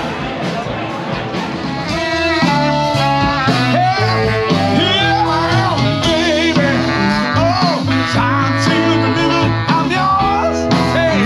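A band playing, with a singer and guitar. The music gets louder and fuller about two seconds in.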